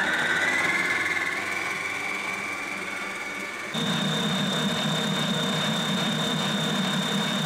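Kenwood stand mixer whisking fresh cream, its motor giving a steady whine. The pitch steps up right at the start, then jumps higher and louder about halfway through as the mixer goes to a faster speed.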